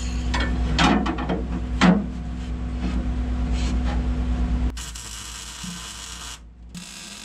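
Steel parts scraping and knocking as a metal mounting plate is worked into place by hand, several short strokes over a steady low hum. The hum cuts off abruptly a little past two-thirds of the way through, leaving a quieter, even hiss.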